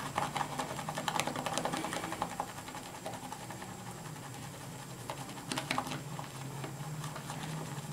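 Shaving brush whipping soft shaving soap into lather in a bowl: a rapid run of fine wet clicks and crackles, a little louder in the first couple of seconds and again briefly around six seconds in.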